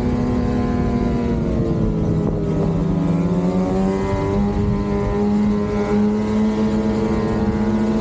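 Lynx Shredder RE 850 Turbo snowmobile's turbocharged two-stroke engine, breathing through a Jaws trail muffler, running under way on the trail. Its note drops about two seconds in and then climbs slowly again as the sled picks up speed.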